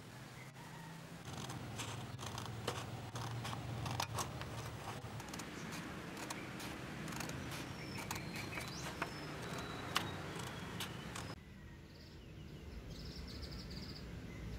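Scissors cutting through a sheet of paper, a run of crisp snips and clicks. About eleven seconds in it gives way to a quieter outdoor background with a bird's brief chirping.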